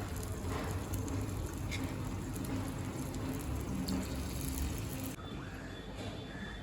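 Appam batter sizzling in a hot paniyaram pan, a steady hiss with a couple of faint clicks, which drops away about five seconds in.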